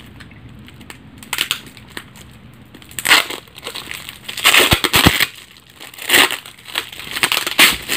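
Plastic wrap and packing tape around a round package crinkling and tearing as it is pulled open by hand, in irregular bursts after about a second of quiet.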